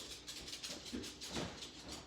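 Dogs scuffling in a play fight: a jumble of rustling and clicking noises with a couple of short, low grunts about a second in.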